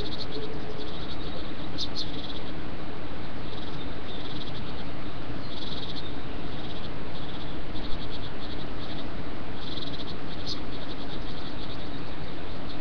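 Inside a great tit nestbox: a steady hiss from the nestbox webcam's microphone, with short trains of fast, high-pitched clicking repeating about every one to two seconds, and a single soft bump about eight seconds in.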